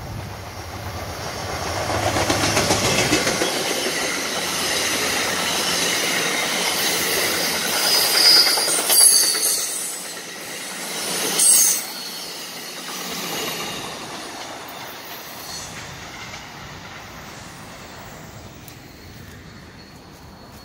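Exo commuter train of bilevel passenger coaches passing close by: a rush of wheel and rail noise with clicking over the rail joints. There is a short high squeal about eight seconds in and a louder burst about eleven and a half seconds in, and then the noise fades away as the train moves off.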